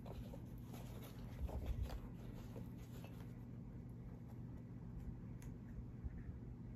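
Soft rustling and light handling clicks as a cloth face mask is pushed and tucked into a Louis Vuitton Pochette Accessoires pouch, busiest in the first two seconds and fainter after.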